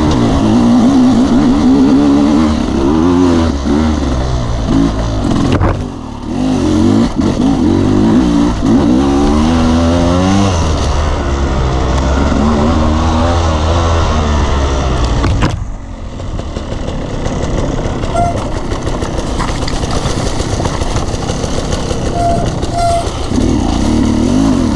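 Off-road motorcycle engine revving up and down as the bike is ridden over rough ground. The throttle shuts off sharply about six seconds in and again near the middle. After that the engine runs lower and steadier.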